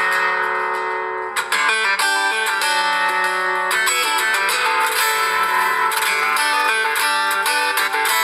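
A stock LG G5 ringtone playing, a melodic tune, with a short break about a second and a half in before the music carries on.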